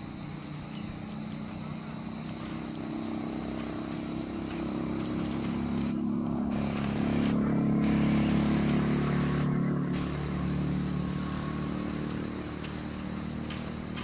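An engine droning with a steady low pitch, growing louder to a peak about eight seconds in and then fading away.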